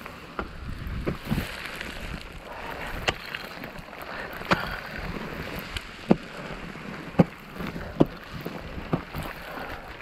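Ice-climbing tools striking frozen ice: a series of short sharp impacts, about one a second from three seconds in, over a steady hiss.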